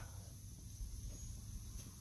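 Quiet outdoor background: a faint steady low rumble with light hiss.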